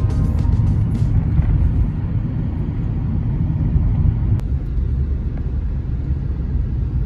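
Car in motion: a steady low rumble of road and engine noise.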